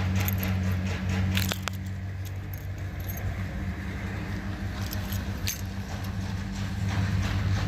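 Metallic clicks and jangling from hand work on a 1978 Chevrolet Corvette's door latch and lock mechanism while the latch is being adjusted. Sharp clicks come about one and a half seconds in and again about five and a half seconds in, over a steady low hum.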